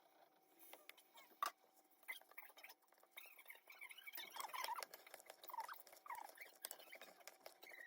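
Faint, sped-up kitchen clatter: scattered light clicks and knocks, with a few short squeaky chirps about halfway through.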